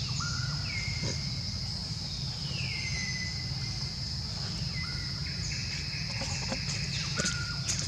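Steady high-pitched insect drone, with a few short falling whistled calls over it and a low background rumble.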